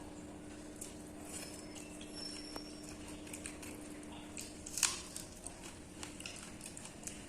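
Eating sounds of pakhala bhata (watered rice) with fried brinjal: scattered soft wet smacks and small clicks of chewing and handling the food, the sharpest about five seconds in, over a steady low hum.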